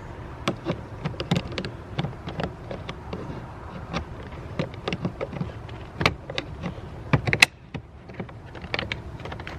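Irregular clicks, taps and scrapes of a flathead screwdriver prying at a car's plastic interior door panel, over a low steady hum.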